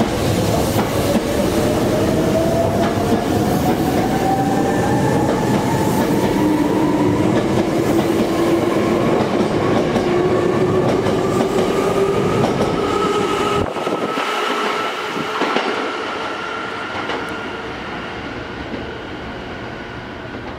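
Hankyu electric train pulling away alongside, its traction motors whining in a pitch that rises steadily as it gathers speed, over the rumble and clack of wheels on the rail joints. About two-thirds of the way through, the low rumble drops away and the sound fades.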